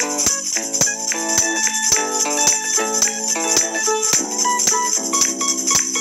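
Background music: pitched instrument notes over a quick, steady beat.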